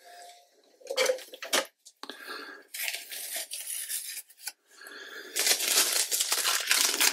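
Masking tape being peeled off the edges of a sheet of watercolour paper, in several ripping pulls, the loudest and longest from about five seconds in. As usual with cellulose paper, the tape tears up the paper's surface as it comes away.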